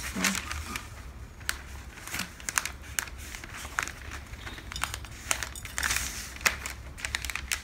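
Sheets of dotted pattern paper rustling and crinkling as they are folded and smoothed by hand, with many short crackles and a few longer rustles.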